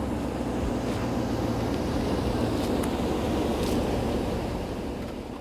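A vehicle running, a steady low engine note under tyre and road noise, fading near the end.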